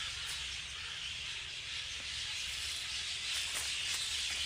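Steady high hiss of outdoor ambience, with a few faint short bird calls about three and a half seconds in.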